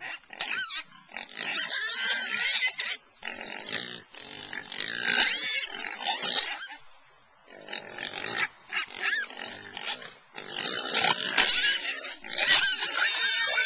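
Pigs calling in repeated bursts of high, wavering squeals mixed with lower grunts, with a short lull about seven seconds in and louder, overlapping squealing near the end.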